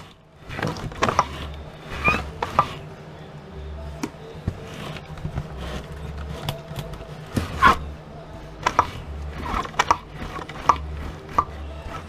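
Irregular knocks, taps and scrapes of hand tools working at the wooden floor of an old camper, where boards and linoleum are being cut and pried up over a soft subfloor. A faint low pulse about once a second runs underneath.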